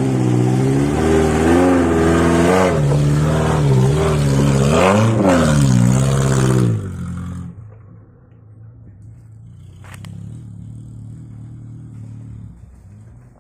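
Suzuki Jimny 4x4 engine revving hard under load as it climbs a steep off-road dirt bank, its pitch rising and dipping again and again. About seven seconds in it drops to a much quieter, steady running. A single sharp click comes near ten seconds.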